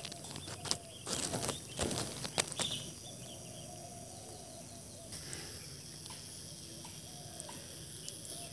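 Rice-paddy field ambience: a steady high insect drone with faint bird calls. Rustling and a few sharp clicks in the first three seconds.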